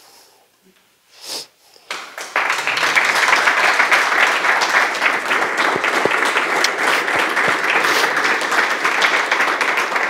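Audience applauding, breaking out about two seconds in and continuing as a dense, even clatter of many hands clapping.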